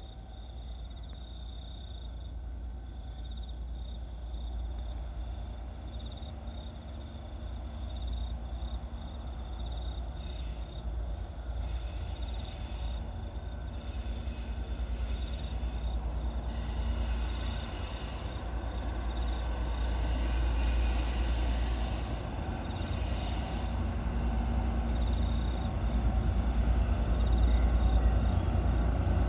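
Train approaching on the rails: a low rumble that grows steadily louder, with a thin, high, steady tone above it.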